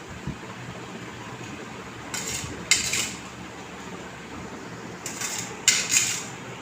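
Tableware clinking and scraping on a plate in two short clattering bursts, about two seconds in and again about five seconds in, over a low steady background hum.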